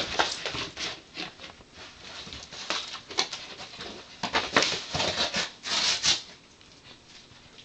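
A corgi tearing and shaking an empty cardboard cereal box: irregular bursts of crackling and rustling cardboard, dying away about six seconds in.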